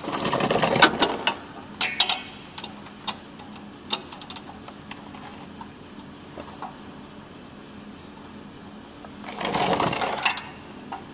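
Socket ratchet clicking rapidly while working the catalytic converter's mounting bolts: one burst in the first second and another near the end. Scattered sharp metallic clinks come from about two to four and a half seconds in.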